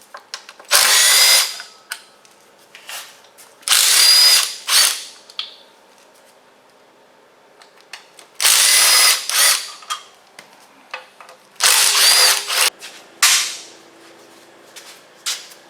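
Cordless power tool run in about five short bursts of a second or so, with clicks and tool clatter between: bolts being run out on the intake of a 12-valve Cummins that went on wrong and has to come back off.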